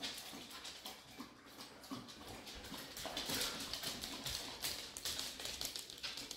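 Dogs' claws clicking irregularly on a hard floor as several dogs walk about.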